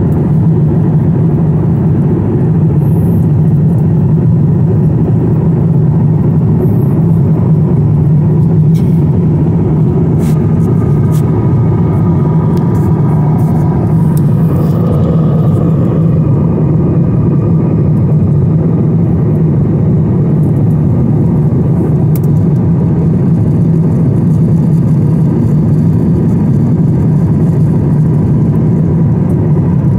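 Steady cabin noise of a jet airliner in cruise flight: deep, even engine and rushing-air noise, with a few faint clicks midway.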